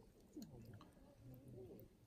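Near silence: the faint crackle of a wood fire, with a few soft pops, under a faint murmur of distant voices.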